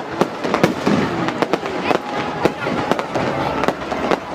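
Fireworks going off: a run of sharp bangs at irregular intervals, about two or three a second, with people talking underneath.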